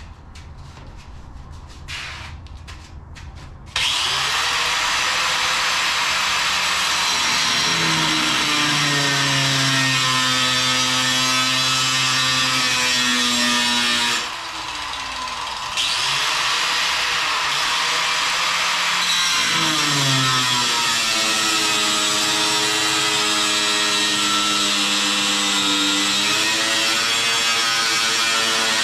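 Angle grinder with a thin cut-off disc cutting steel plate: the motor comes on about four seconds in and runs loudly with the hiss of the disc in the metal, its whine sagging in pitch as the disc bites. The cut eases off briefly around the middle, then carries on.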